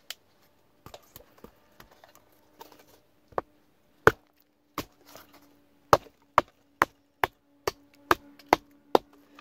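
Large survival knife chopping into a branch held across a log to split it: sharp blade-on-wood strikes, a few light taps at first, then about a dozen hard chops coming faster, about two a second near the end.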